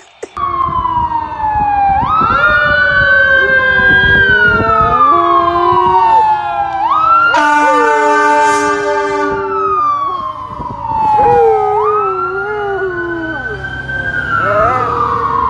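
Fire engine siren wailing in long, slow rising and falling sweeps, three cycles. About halfway through, a horn blasts for about two seconds.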